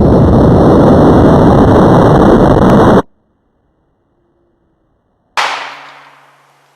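Loud rumbling rush of noise that cuts off suddenly about three seconds in, then, after a silence, a single sharp bang fading away over about a second.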